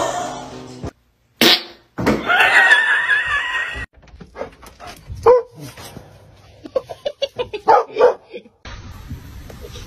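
A dog barking and yipping in short, scattered bursts.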